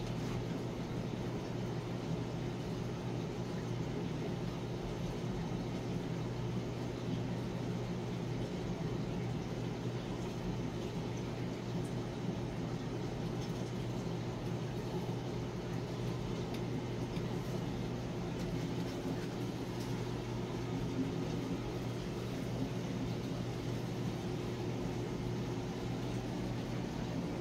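Aquarium equipment humming steadily, a low even hum with a constant hiss over it.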